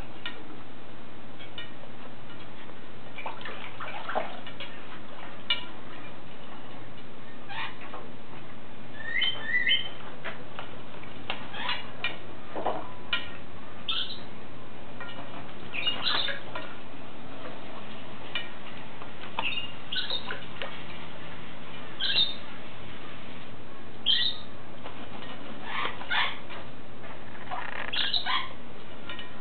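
African grey parrot bathing in a bowl of water: short, scattered bursts of splashing and wing-fluttering, with a few brief squawks, over a steady background hiss.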